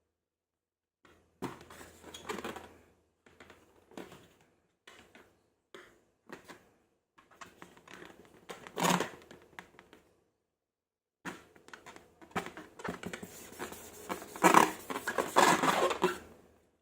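Slime being squished and worked by hand: irregular bursts of sticky crackling and clicking with short pauses between them, loudest about nine seconds in and in a longer run near the end.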